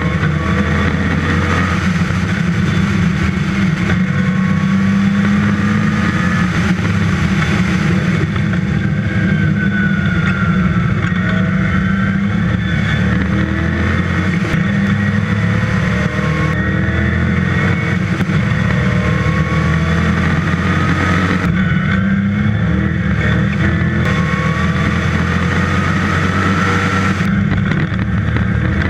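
Westfield's dry-sumped 5-litre V8 under hard acceleration, with wind rush on an open-cockpit onboard microphone. The engine note climbs, then breaks off and drops back several times as the car works through the gears and corners.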